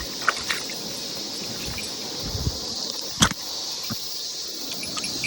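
A steady, high-pitched chorus of insects, with a few sharp clicks and knocks from fishing tackle being handled. The loudest click comes a little after three seconds in.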